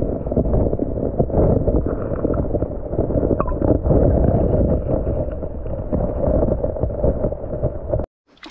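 Muffled underwater rushing and burbling of river water heard through an action camera held beneath the surface, dull and low with no clear high sounds. It cuts off suddenly near the end and gives way to much quieter open-air sound.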